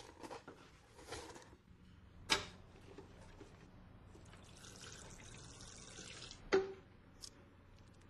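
Water running and splashing, with two sharp knocks, one about two seconds in and one near six and a half seconds.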